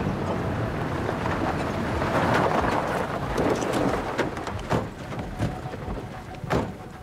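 Nissan pickup trucks sliding to a stop on a gravel track: tyres scraping and crunching over stones along with the engines, easing off about four seconds in. A few sharp knocks follow, the loudest near the end.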